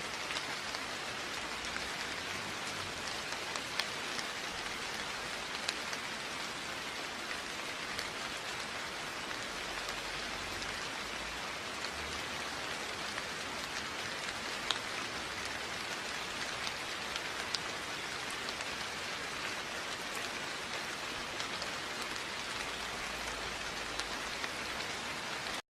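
Steady rain falling, an even hiss with scattered sharper drops ticking through it. It cuts off suddenly at the very end.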